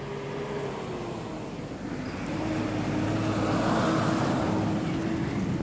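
Road traffic: a motor vehicle passing close by, growing louder to its peak about four seconds in.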